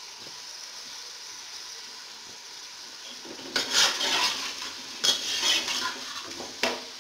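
Chicken frying in oil in an aluminium pressure cooker with a steady sizzle, then from about halfway a metal spatula scraping and clanking against the pot as the chicken is stirred, in two longer bouts and a short clank near the end.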